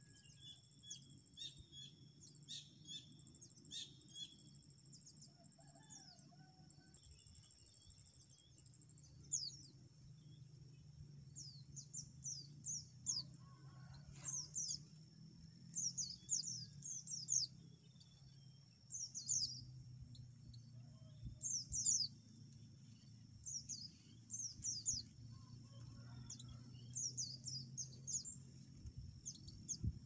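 Oriental white-eyes (pleci) calling: short, thin, high chirps in quick clusters of falling notes, coming more often after about the first third. A steady high-pitched tone and a faint low hum run underneath.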